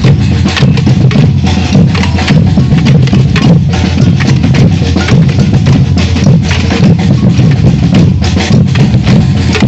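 Batucada samba percussion ensemble playing a fast, driving rhythm: deep bass drums under dense, sharp high strikes, loud throughout.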